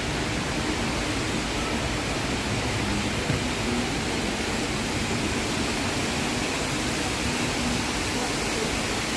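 Steady rush of the Rain Vortex, a tall indoor waterfall pouring down through a glass dome, heard as an even, unbroken wash of water noise.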